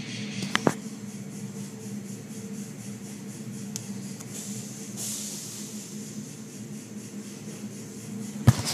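Automatic car wash heard from inside the car: water spray hissing over the car's body and windows above a steady low hum, with the hiss swelling about five seconds in. Sharp knocks come about half a second in and again near the end.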